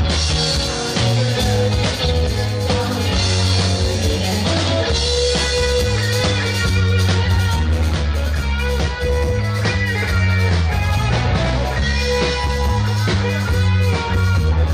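Live rock band playing: electric guitar, bass guitar and drum kit, with a strong steady bass line.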